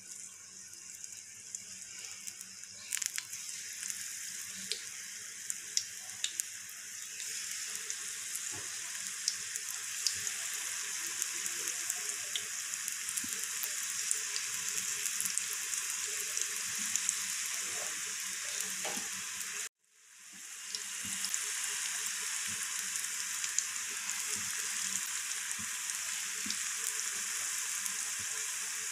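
Batter-coated cauliflower pakoras deep-frying in hot oil in a karahi: a steady sizzle with scattered pops and crackles, growing louder over the first several seconds as more pieces go into the oil. The sound breaks off for an instant about two-thirds of the way through, then carries on.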